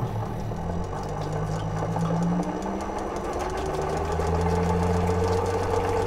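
Home-built 12-volt Adams-type repulsion motor driving a small water pressure pump, being sped up: its steady mechanical whirr climbs in pitch and gets a little louder about four seconds in as it approaches full speed.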